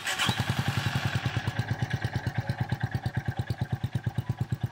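Honda GB350's air-cooled single-cylinder engine idling, with an even exhaust beat of about ten pulses a second.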